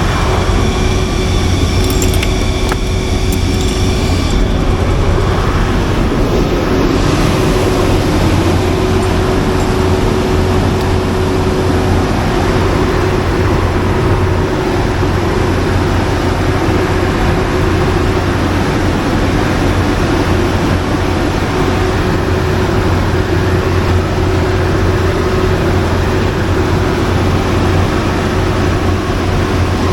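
Large generator set running steadily under a load bank test, a constant deep machine drone with a fan-like rush over it. A thin high whine sits on top for the first four seconds or so, then drops away.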